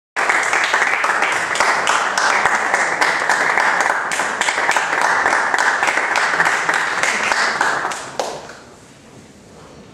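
Audience applauding, a dense patter of many hands clapping that dies away about eight seconds in.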